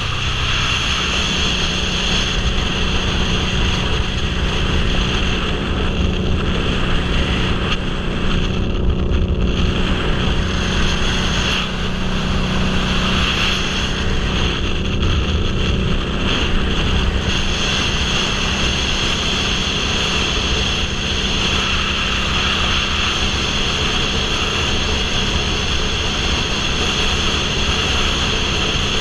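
Motorcycle engine running at a steady cruising speed, with heavy wind rush over a helmet-mounted microphone.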